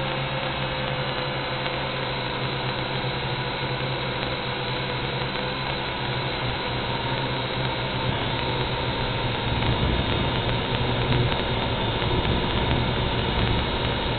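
Steady motor and propeller buzz of a WLtoys V686G quadcopter in flight, heard from on board, growing a little louder about two thirds of the way in as it climbs.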